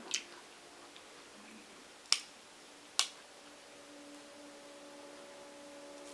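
Crab leg shells snapped and cracked by hand, three sharp cracks. A low steady hum comes in about four seconds in.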